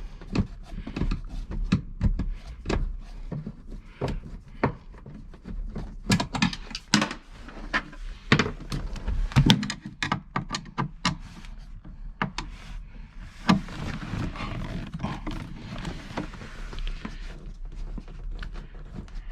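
Irregular clicks, knocks and clatter of hand tools and metal seat fittings being worked loose while the car's seats are taken apart, with a stretch of rustling about two-thirds of the way through.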